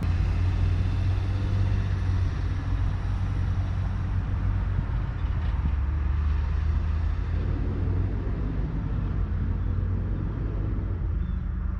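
A steady low mechanical rumble, like a motor or engine running, holding an even level throughout.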